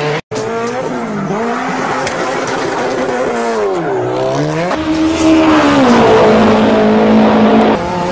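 Long, drawn-out cat yowls that waver slowly up and down in pitch, sometimes two at once, with one steadier held yowl that breaks off near the end.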